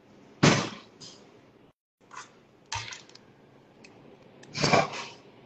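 A few short knocks and clatters, the loudest about half a second in and another near the end, with two smaller ones in between, over quiet room tone.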